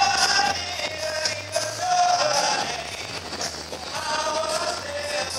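Live music over an outdoor stage's speakers: a male vocal group singing a song with instrumental backing, heard from among the crowd with rough, poor sound quality.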